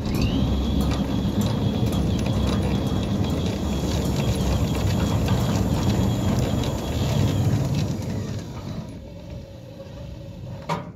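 Centurion D5 Evo Smart sliding gate motor running the gate along its track. A whine rises as it starts, holds steady under a rolling rattle, then falls away as it slows about eight seconds in, with a click near the end. It runs smoothly.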